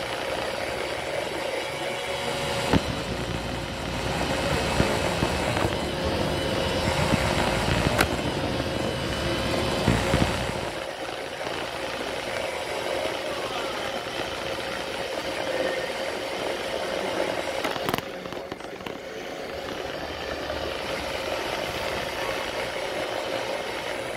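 Roomba robot vacuum running, its motor and brushes giving a steady whine and hum. The rumble grows louder and rougher from about three seconds in until about ten seconds, and there are a few sharp knocks.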